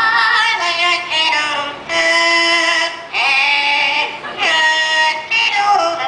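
Parrot singing a song into a handheld microphone: a string of about six held notes with short breaks between them.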